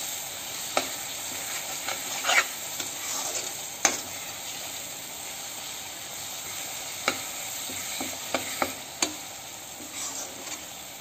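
Onion and dry-spice masala sizzling in hot oil in a kadai while being stirred with a spatula, which scrapes and knocks sharply against the pan every second or so. The spices are being fried with the onions until they blend in.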